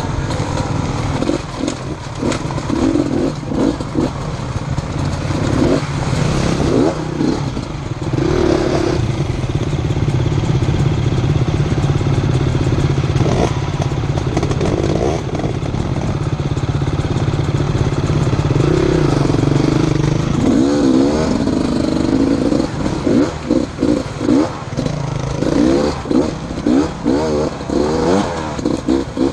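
Enduro motorcycle engine running for about twenty seconds under fairly steady throttle. In the last third it turns choppy, with quick repeated revs rising and falling as the throttle is blipped and shut.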